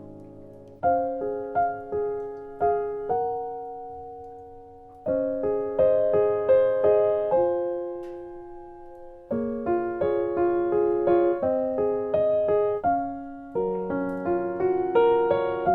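Background music: a gentle solo piano melody, with single notes and chords struck and left to ring out, played in short phrases separated by brief pauses.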